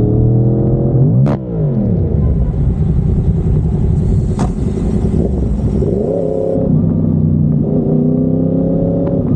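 Yamaha MT-10's crossplane inline-four running through an SC Project 70mm carbon titanium exhaust, the revs rising and falling with the throttle while riding. The engine note dips sharply and picks back up about a second in, and shifts again past the middle before settling to a steady pull.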